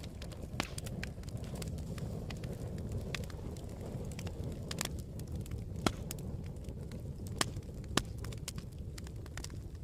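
Campfire burning, with a steady low rumble and scattered sharp crackles and pops at irregular intervals, a few louder snaps near the middle and end.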